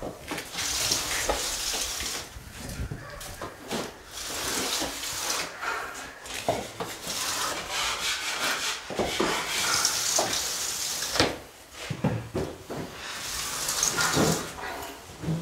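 A drywall finishing tool on an extension pole scraping joint compound along the drywall in a series of strokes of a second or two each, with a few light knocks between strokes.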